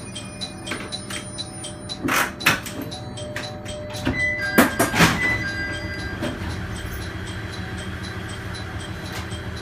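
A stationary diesel railcar with its engine idling in a steady low hum and an even ticking of about three a second. About two seconds in and again around five seconds come loud bursts of air hiss and clunks as the sliding doors open, with short steady beeping tones between them.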